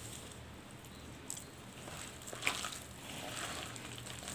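A hand squelching and kneading thick, wet drumstick-leaf bonda batter in a plastic bowl: soft, faint squishes with a couple of light clicks.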